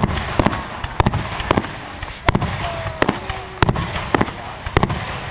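Fireworks show: a rapid string of sharp bangs from exploding shells, about two a second, over continuous background noise.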